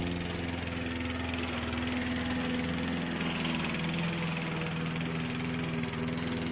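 Petrol lawn mower engine running steadily as the yard is mowed, its pitch wavering slightly under load.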